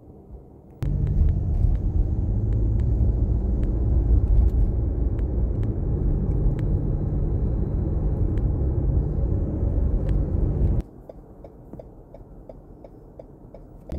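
Car cabin noise while driving: a loud, low road-and-engine rumble that comes in abruptly about a second in and cuts off sharply near the end. In the quieter stretch after it there is an even ticking, about three ticks a second.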